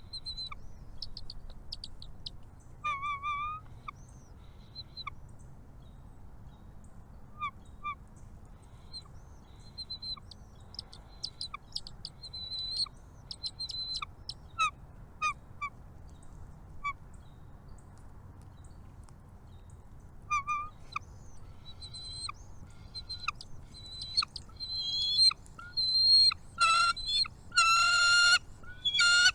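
Birds at a nest chirping: scattered short chirps and whistles, then near the end a run of loud, repeated nasal calls.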